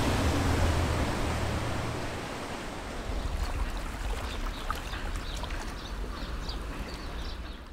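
Water lapping and splashing gently with small scattered splashes, fading out toward the end. A low hum dies away about two seconds in.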